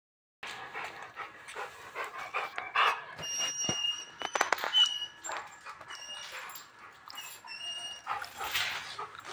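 Rottweiler panting, a run of quick breathy puffs, with a few short high-pitched squeaks in the middle.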